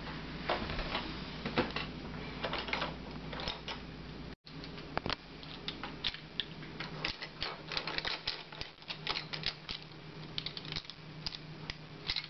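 Rapid, irregular light clicks and taps over a low steady hum, cutting out for an instant about a third of the way through.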